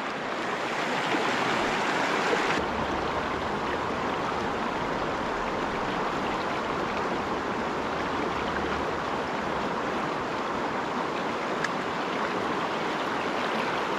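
Mountain freestone stream running over rocks in shallow riffles, a steady even rush of water.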